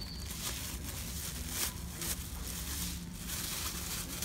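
Thin disposable plastic gloves crinkling and rustling as hands pull them on and work the fingers in, in irregular crackly bursts over a low steady hum.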